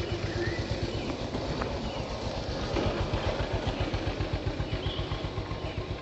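An engine running steadily with a low, rapid pulsing beat, with short faint bird chirps over it.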